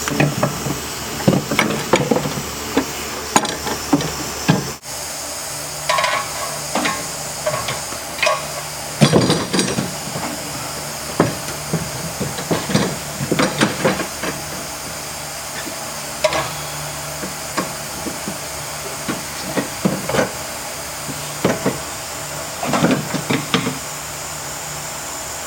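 Irregular metallic clanks and knocks as a car's rear strut assembly is worked loose and pulled out of the suspension, over a steady background hiss.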